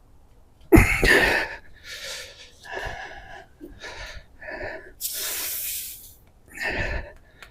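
Tire reamer being worked in and out of a puncture in a tubeless tire: a series of short rasping strokes, the loudest about a second in, with a longer hiss about five seconds in.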